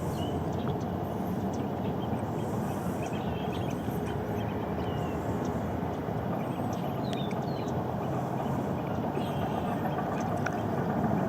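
Steady low outdoor rumble at a wetland, with short high bird calls scattered through it.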